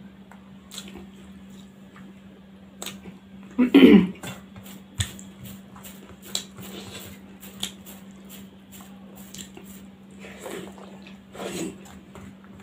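A person eating rice by hand from a steel plate: fingers scraping and mixing rice on the metal, with chewing and mouth noises, the loudest a short mouth sound about four seconds in. A steady low hum runs underneath.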